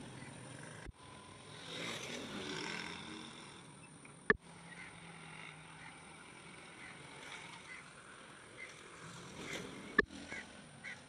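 Faint outdoor background noise, with a louder swell of rumble and hum about two seconds in. Two sharp clicks, at about four and ten seconds, mark cuts in the recording.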